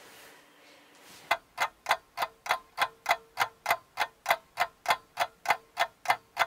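Ticking clock sound effect: evenly spaced ticks, about three and a half a second, starting about a second in, with a faint steady tone under them.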